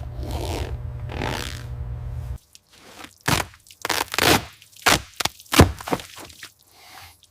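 A steady low machine hum with a swishing noise that cuts off abruptly about two seconds in, followed by a string of sharp scrapes and cracks.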